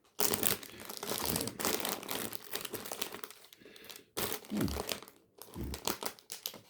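Plastic snack wrappers crinkling and rustling as packets are handled and put back into a box, in irregular bursts with two short pauses.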